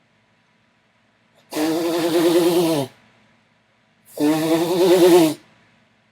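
A person sneezing loudly twice, the sneezes about two and a half seconds apart, each a drawn-out voiced sneeze lasting over a second.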